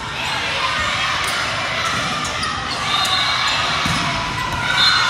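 Volleyball rally in a gym: a steady din of players and spectators calling out and cheering, with a few sharp smacks of the ball being struck.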